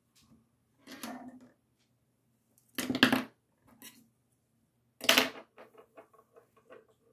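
Small hard objects being handled and set down with a clatter: a softer clatter about a second in, two louder ones near three and five seconds, then a run of light ticks.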